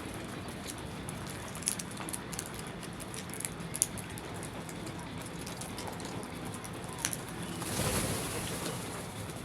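Birds pecking and moving about: scattered light taps and clicks over a steady hiss, with a short rushing swell of noise, like wingbeats, near the end.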